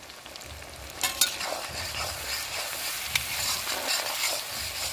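Onion with garlic, ginger and green chilli pastes frying in hot oil in a kadai while being stirred. The sizzle picks up about a second in, with a few sharp knocks of the stirring utensil against the pan.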